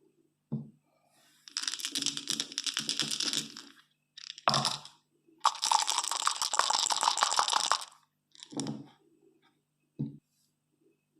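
Dice being shaken: two rattles of rapid clicking, each lasting about two seconds. Between and after them come single knocks of dice striking down.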